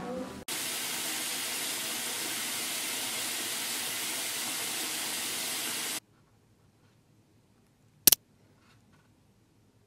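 A steady, even hiss starts abruptly and cuts off suddenly about six seconds in. Near silence follows, broken by a single sharp click about two seconds later.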